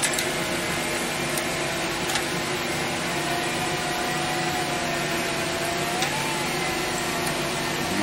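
Steady whirring hum and hiss of a background fan or motor, with a few faint metal clicks as a screwdriver works the ground screw inside the pressure switch.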